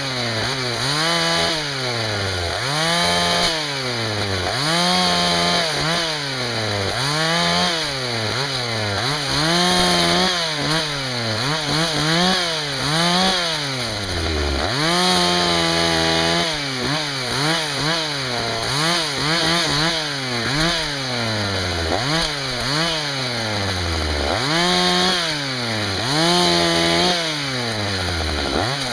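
Husqvarna 61 two-stroke chainsaw bucking firewood. The engine revs up and drops in pitch over and over, about once every second or two as the chain loads in each cut, with a few longer held stretches at high revs.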